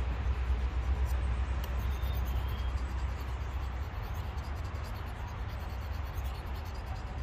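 Knife blade scraping and rasping against a white bass's scales and head on a cutting board. Under it a low rumble, the loudest thing, eases off about four seconds in.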